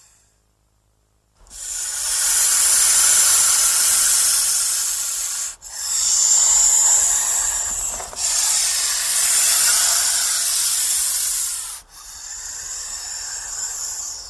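Snake hissing: four long hisses in a row, each lasting about two to four seconds with only brief breaks between them, beginning about a second and a half in. It is the defensive warning hiss that snakes give when they feel threatened.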